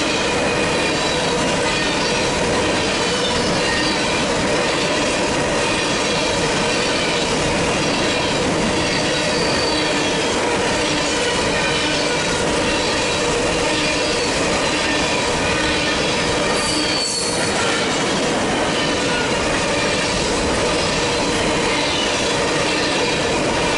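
Covered hopper cars of a BNSF grain train rolling past at close range: the steady noise of steel wheels on rail, with wheel squeal coming and going in short high whines.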